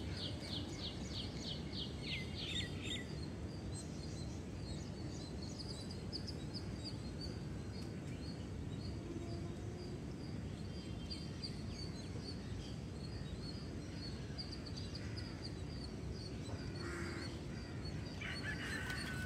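Birds chirping over a steady low background rumble. A quick run of high chirps comes in the first few seconds, then a string of repeated high chirps continues.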